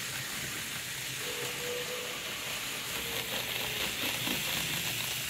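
N gauge Eurostar model train running along the track: a steady whirring hiss of its motor and wheels on the rails, with a faint wavering whine and fine clicking.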